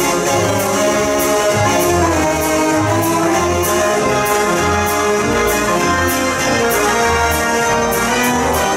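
Mortier dance organ playing a tune: held melody notes over pulsing bass notes and a steady percussion beat of about two strikes a second.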